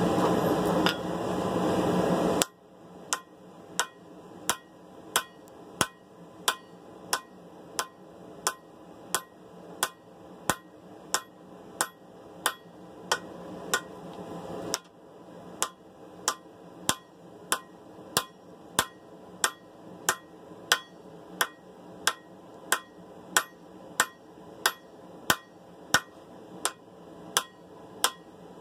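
Steady hammer blows on hot steel at the anvil, about one and a half strikes a second, each with a short metallic ring, as the sword blade is forged out. For the first couple of seconds a loud steady rushing noise is heard instead; it cuts off suddenly.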